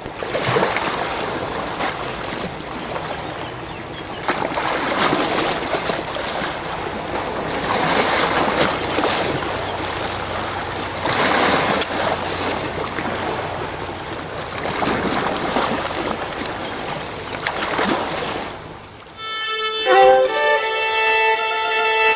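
Sea waves washing in, one swell about every three to four seconds. Near the end the waves fade and a bowed fiddle starts playing a melody in held notes.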